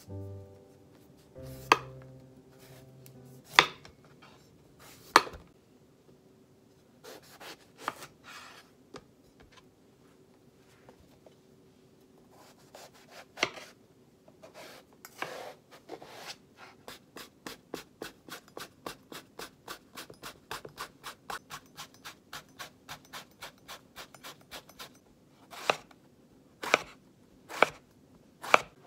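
Kitchen knife cutting a long eggplant on a cutting board. A few heavy single chops come first. Then a run of quick, even slices at about four a second, and several more heavy chops near the end.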